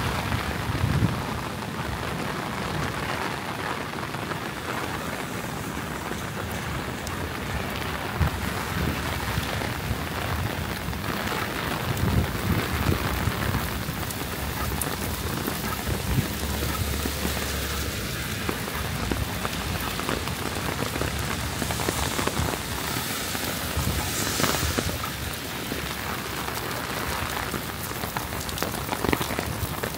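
Heavy rain falling in a dense, steady hiss, with a few low rumbles of distant thunder underneath.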